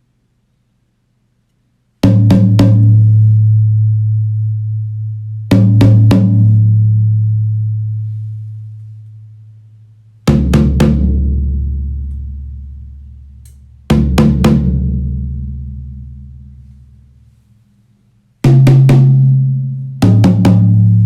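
Pearl Session Select drums, tuned for long sustain, struck in quick groups of three or four hits with each group left to ring and slowly die away. The groups move between drums of different pitch, the deepest one about 10 seconds in.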